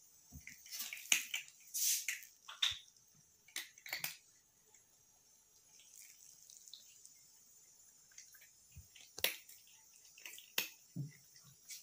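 Cat crunching dry kibble eaten from a hand: irregular short, sharp crunches, with a quieter spell midway.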